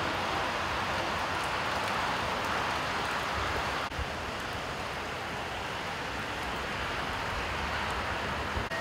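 Steady outdoor ambient rush, an even hiss with no distinct events, dipping briefly about four seconds in.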